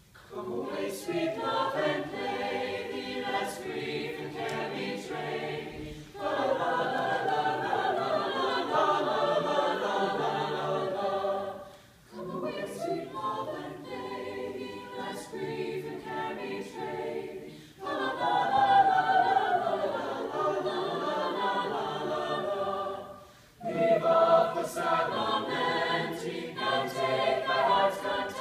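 A school choir singing, likely a cappella, in sections that break off and change abruptly about every six seconds.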